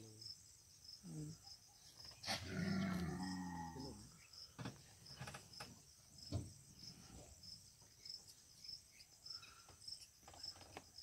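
Insects chirping high and steadily, in an even rhythm of a little under two chirps a second. About two seconds in, a low, drawn-out call that falls in pitch rises above them for a second or two and is the loudest sound.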